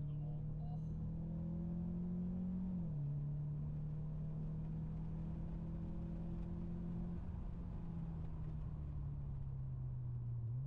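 Car engine heard from inside the cabin while being driven on a track. Its note climbs, drops abruptly at a gear change about three seconds in, then holds steady and slowly falls away near the end.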